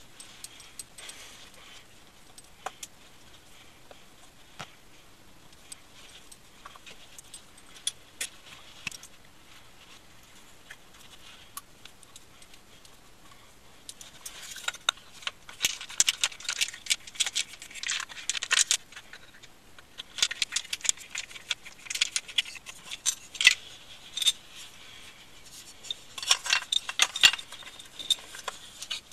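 Small clicks, taps and rattles of a revolver's grip being taken off and new wooden grips fitted by hand. A few faint, scattered clicks at first, then from about halfway a dense, quick run of handling clicks and rattles, played at double speed.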